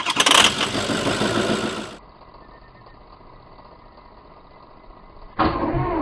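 Starter cranking a 2003 Ford 6.0L Power Stroke diesel V8, loud and pulsing for about the first two seconds. A quieter stretch follows, and cranking starts again about five seconds in.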